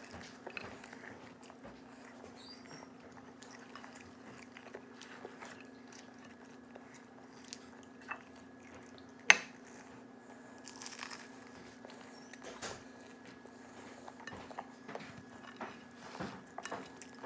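Close-up eating sounds: biting and chewing crisp fried spring rolls (lumpiang togue), with scattered small crunches and clicks and one sharp click about nine seconds in. A steady low hum runs underneath.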